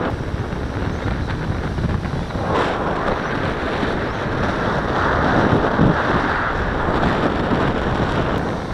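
Wind buffeting the microphone in a strong onshore breeze, with surf washing in beneath it.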